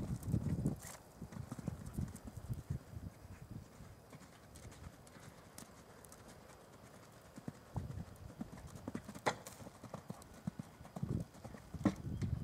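Horse's hooves cantering on sand arena footing, a run of dull thuds. Loud at first, they fade as the horse moves away and grow louder again in the last few seconds as it comes nearer.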